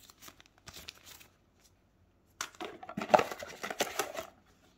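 Thin plastic packaging crinkling and rustling as it is handled, light at first, then a louder stretch of about two seconds in the middle.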